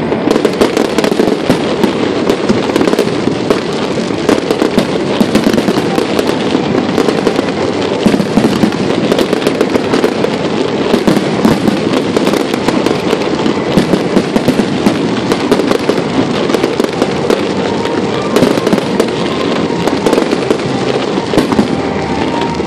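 Fireworks display at full intensity: a dense, continuous barrage of bursts and crackling with no pause.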